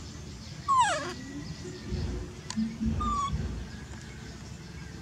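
Baby macaque whimpering: a loud cry that falls in pitch about a second in, then a short, higher call about three seconds in.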